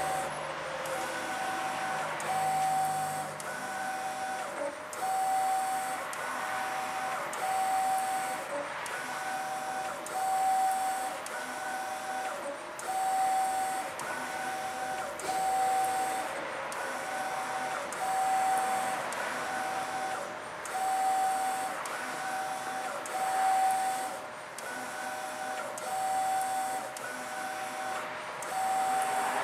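Mimaki GP-604 direct-to-garment inkjet printer mid-print, its print-head carriage sweeping back and forth over the garment. A steady mechanical whir with a humming tone that cuts in and out, swelling and easing about every two and a half seconds with each pass.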